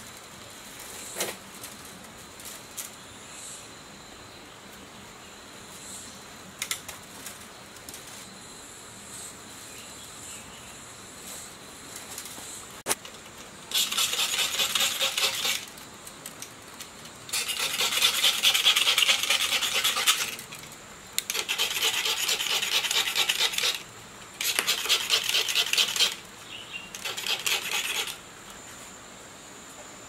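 Rapid rasping strokes of enamelled copper winding leads being scraped bare, in five bursts of one to three seconds each during the second half, with a few light clicks and taps before them.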